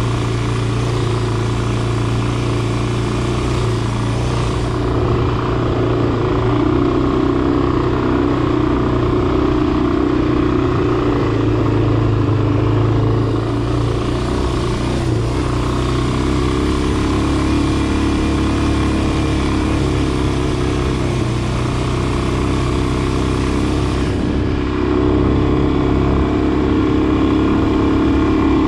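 Dirt bike engine running at low, steady revs as the bike is ridden slowly in second gear along a dirt trail.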